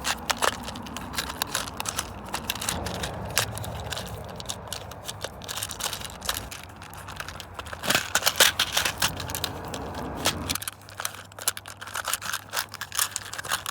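Plastic fidget puzzle toy clicking and rattling as it is twisted and turned in the hands, with quick, irregular clicks and a louder flurry a little past the middle.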